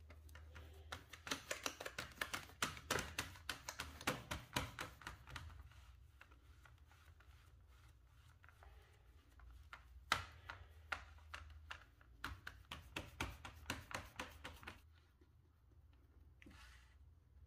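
Fingertips pressing and patting shortcrust dough into a fluted metal tart tin: quick light taps in two runs of several seconds.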